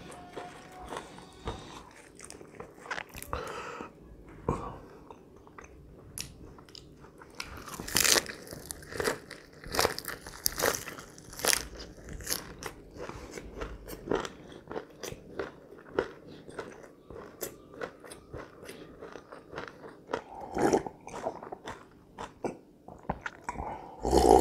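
Close-miked biting and chewing of pan-fried chicken tails eaten by hand: a steady run of sharp wet mouth clicks, busiest about eight to twelve seconds in. Near the end comes a louder gulp as a glass of juice is drunk.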